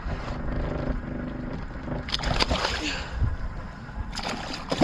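Boat motor running low under splashing water and sharp knocks as a hooked bluefish is gaffed at the side of the boat, in two bursts about two seconds apart.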